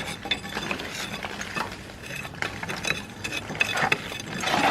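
Irregular light clinks and scrapes of stone and loose mortar grit being handled, with a longer, louder scrape near the end.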